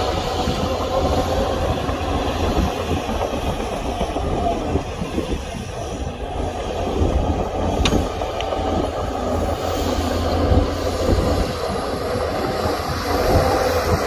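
Heavy diesel earthmoving machinery running steadily with a low rumble, with a couple of short sharp clicks about halfway through.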